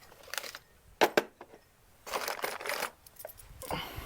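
A few sharp metallic clinks, the loudest pair about a second in, with some rattling and rustling around them: a small steel knockout slug from an electrical box being tossed aside and small metal parts and hand tools being handled.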